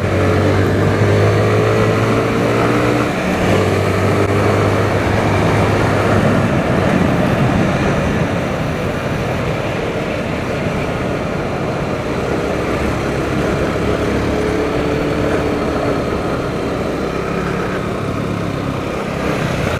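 A motorcycle on the move: the engine runs at a steady pitch, with a short break about three seconds in. From about seven seconds on, a rushing noise of wind and road takes over and the engine note sinks into it.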